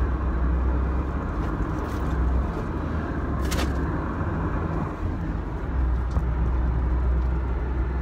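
Inside the cabin of a van being driven: steady low engine and road rumble, with a brief click about three and a half seconds in.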